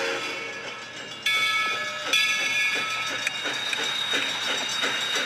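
Steam locomotive getting under way: steam hiss with a held, multi-note whistle from about a second in, then exhaust chuffs at an even beat of about three a second.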